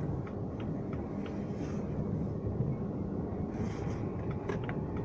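Steady road and engine rumble inside the cabin of a moving JAC S5 crossover, with a few faint ticks.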